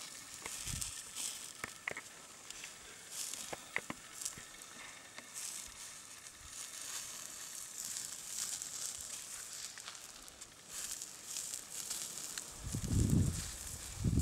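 Rabbit roasting over hot wood embers while being basted with a brush, with a steady sizzling hiss and scattered sharp crackles and pops. A low rumble comes in near the end.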